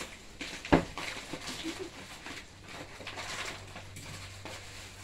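Plastic packaging being handled and opened, with irregular crinkling and rustling and one sharp knock just under a second in.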